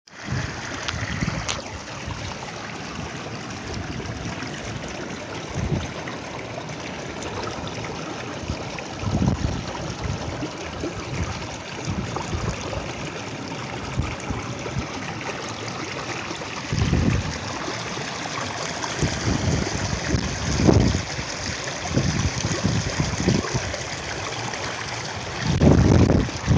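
Shallow burn babbling and trickling steadily over stones, with a few louder low rumbles on the microphone.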